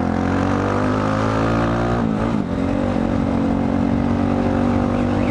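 Dafra Next 250 motorcycle engine running under way, its revs sinking slowly, with a short break about two seconds in, as at a gear change, then running steadily again.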